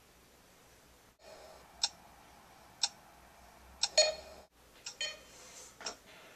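Clock ticking about once a second, sharp single ticks with a brief ring after each.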